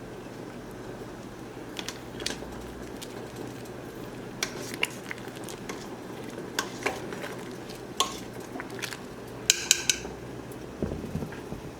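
Metal cooking utensils clinking and tapping against a pot, a dozen or so sharp clinks spread out, with a quick cluster of ringing clinks near the end, over a steady low hum.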